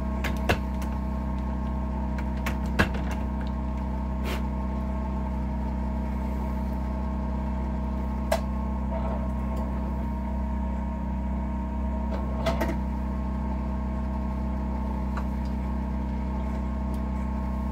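Steady machine hum with a few sharp clicks and light knocks as shotshell reloading components, an overshot card among them, are handled.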